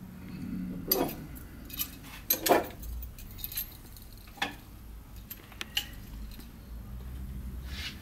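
Scattered clicks and clinks as a glass display-cabinet door is handled and small metal bike stems are picked out and moved, with the sharpest knocks about a second in and around two and a half seconds.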